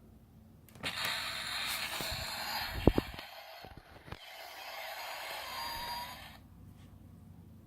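Sound effect played through the small speaker of a miniature DeLorean toy: a harsh hissing rush lasting about five and a half seconds, with a short thump about three seconds in.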